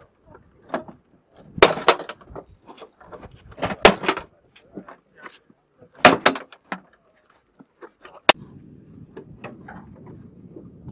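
Sharp metallic clicks and clanks of a Pave Hawk helicopter's access panels and latches being worked during a preflight inspection. They come in several short clusters about two seconds apart, over a faint low hum.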